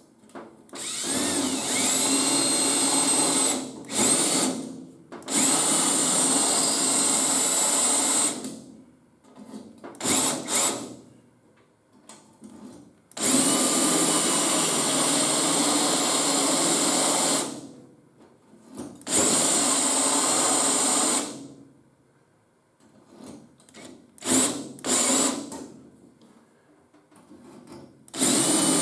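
Handheld power tool run in repeated bursts of two to four seconds on the remains of a car's sheet-metal battery box. Each burst spins up to a high steady whine and winds down, with a few short blips near the end.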